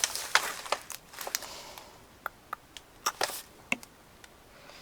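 Packaging being handled: irregular crisp crinkles, rustles and sharp clicks from a mailing package, with short pauses between them.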